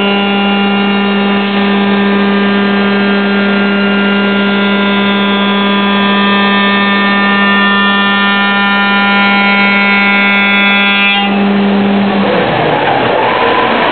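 Five-axis CNC machining centre's router spindle milling a block of wood: a steady high whine with many overtones over the noise of the cutter. About eleven seconds in the upper overtones cut off, and a second later the whine falls away, leaving a noisier rush with a higher hum.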